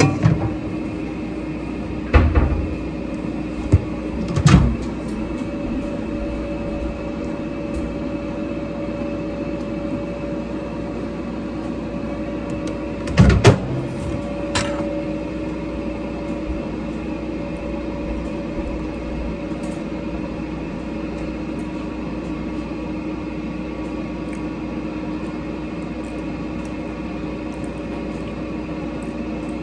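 Microwave oven running with a steady hum, most likely heating rice. A few sharp knocks, like cupboard doors shutting, come about two, four and thirteen seconds in.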